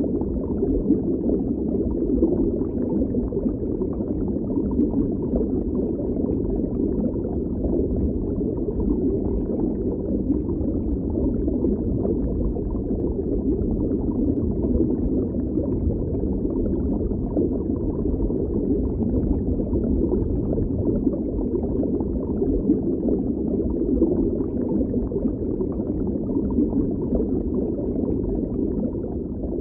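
Underwater ambience sound effect: a steady, muffled low rumble with a bubbling, gurgling texture.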